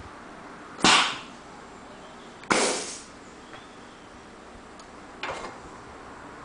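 Sharp bursts of compressed air venting from the pneumatics of a balloon-catheter heat-set machine, as its pressure or vacuum valves switch. Two loud hisses come about a second apart, the second lasting longer, and a fainter one follows a few seconds later.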